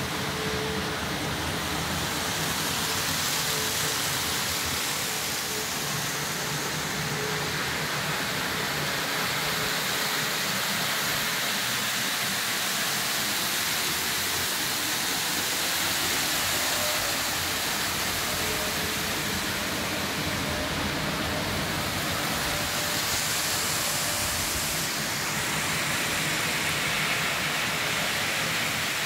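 Two Kato N-scale bullet-train models running at full throttle: a steady rushing whir of the small metal wheels and motors on the track, holding even throughout.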